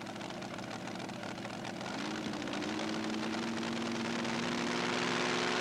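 The mini tractor puller's eight-cylinder Chevrolet engine running at the start line. From about two seconds in there is a steady hum that rises slightly in pitch and grows slowly louder.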